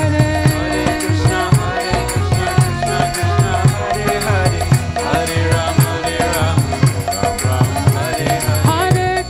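Kirtan music: a steady percussive beat with jingling, rattle-like hand percussion under sustained, gliding melodic lines.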